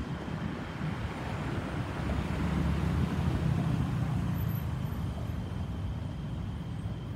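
Low, distant rumble of a Boeing 737-800's CFM56-7B jet engines as the airliner climbs out after takeoff, swelling a little in the middle.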